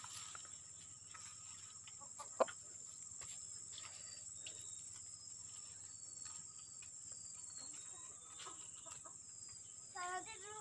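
Domestic hens clucking softly over a steady high insect drone, with one sharp knock about two seconds in.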